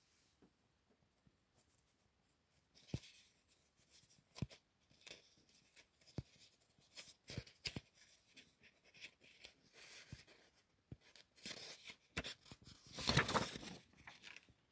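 Faint rustling of paper with scattered light clicks and knocks, and a louder rustle about 13 seconds in, as the drawing sheets are handled.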